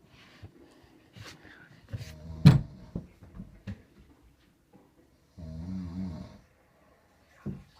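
A person snoring in sleep: two snores about three seconds apart, the first about two seconds in with a sharp, loud snort at its peak.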